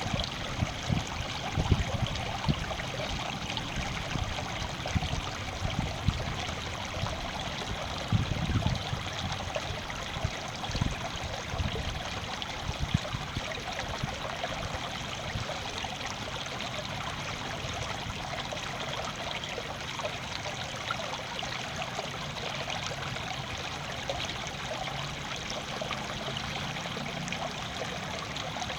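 Steadily running water. Irregular low thumps come through the first half and die away.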